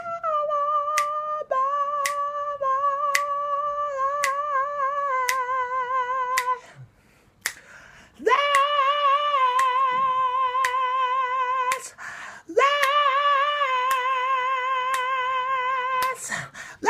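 A man's voice singing long, high held notes with a wavering vibrato, in three phrases with two short pauses. Finger snaps keep time about twice a second.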